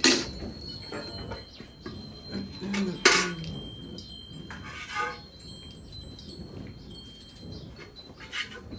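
Hand-milking into a steel milk pail: the pail rings steadily, with two sharp metallic clinks about three seconds apart.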